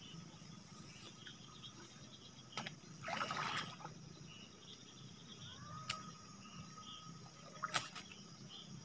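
Faint outdoor ambience with a steady low hum and high hiss, broken by a few sharp clicks and a brief rustling swish as a fishing rod and reel are worked and swung back into a cast.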